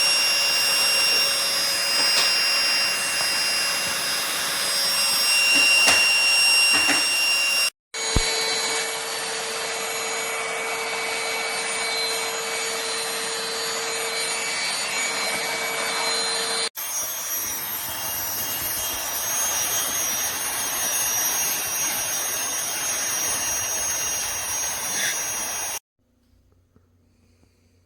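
Aspiron cordless handheld vacuum cleaner running: a steady rush of air with a high motor whine. It breaks off abruptly twice, with a slightly different tone after each break, and stops abruptly near the end.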